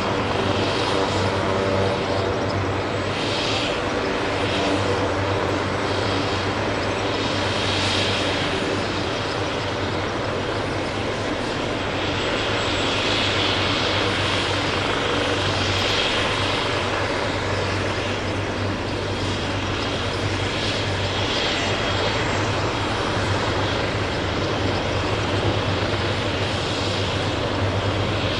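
Leonardo AW139 helicopter running steadily: its twin turboshaft engines and rotors make a continuous drone with a steady low tone, and the higher rushing noise rises and falls every few seconds.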